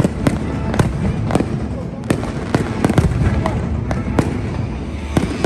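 Fireworks display going off: a constant low rumble of explosions with many sharp cracks, several each second.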